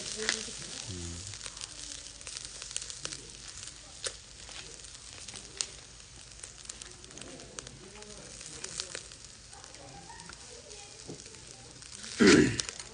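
Skewered chicken sizzling over glowing charcoal in a shichirin clay grill, a steady hiss with fat crackling and popping now and then. A brief loud rustle near the end.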